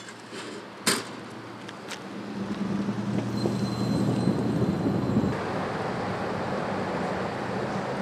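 A van's rear door slams shut about a second in. Then a vehicle engine hum builds and runs for a few seconds before the sound changes abruptly to a steady rushing wash of wind and flowing water.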